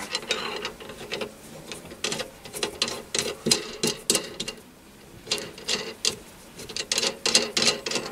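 A steel nut spun by hand along the threaded end of a steel shaft, clicking and rattling on the threads in short, irregular bursts.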